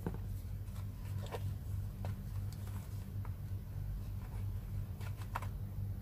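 Scattered light taps and clicks of hands handling a smartphone on a cardboard box and touching a laptop, with a quick cluster of clicks about five seconds in, over a steady low hum.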